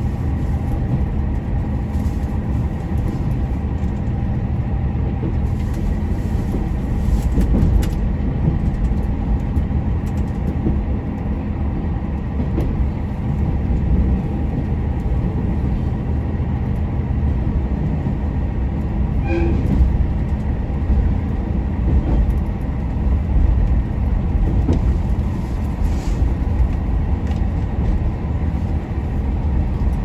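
Super Hakuto limited express diesel railcar running slowly into the platform, heard from just behind the driver's cab. A steady low rumble of engine and wheels, with a faint hum over it.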